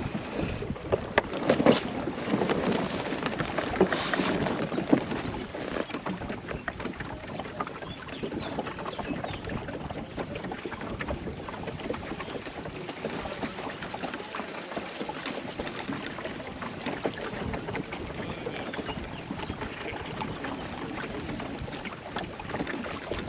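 Water swishing and lapping along the clinker plywood hull of a small lugsail dinghy under sail, with wind buffeting the microphone. A few sharp knocks come in the first five seconds.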